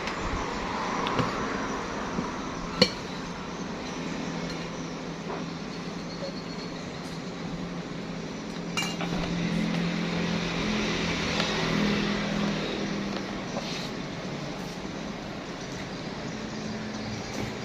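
A few sharp clinks of dishes or cutlery, the sharpest about three seconds in and another near nine seconds, over a steady background hum.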